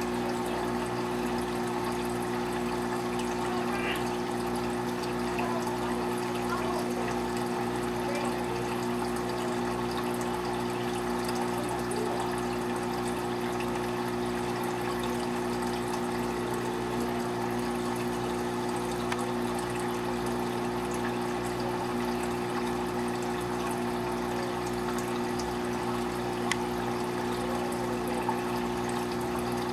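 Saltwater aquarium pump humming steadily under a constant trickle and rush of circulating water, with a couple of faint clicks.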